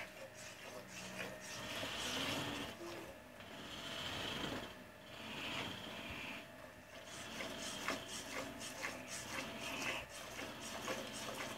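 Milk squirting from a cow's teats into a metal pail during hand milking: a rhythmic, hissing rasp of squirts, which become sharper and more separate in the second half.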